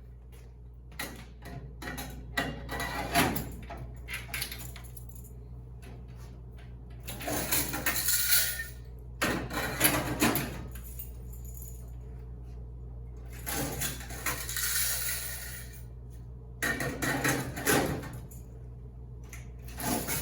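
Coins clinking and jingling in several bursts of a second or two, over a steady low hum.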